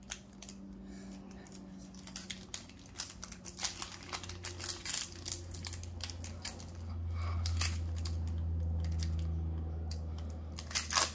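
Crinkling and crackling of a foil Pokémon booster pack wrapper being torn open by hand at its crimped seal. A low steady hum comes in about four seconds in and grows louder.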